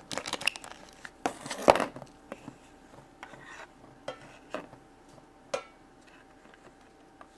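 A small plastic toy and its packaging being handled: quick crinkling and clicking of plastic for the first two seconds, then scattered single clicks and taps that thin out toward the end.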